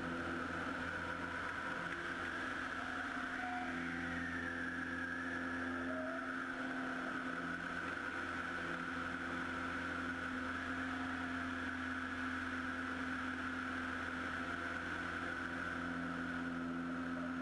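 Bellanca Super Decathlon's Lycoming four-cylinder engine and propeller droning steadily in cruise, heard from outside on the wing strut with rushing airflow mixed in.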